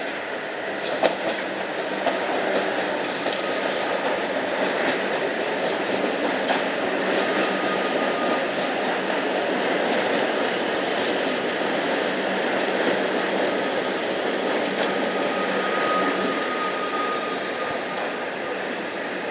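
Melbourne suburban electric train running on the rails through a station, a steady wheel-and-rail noise. A faint thin wheel squeal comes in twice, about halfway through and again near the end.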